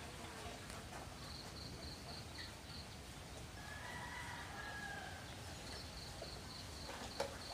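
Faint farmyard background: a chicken clucking about halfway through, and twice a high, rapid chirping, with one sharp click near the end.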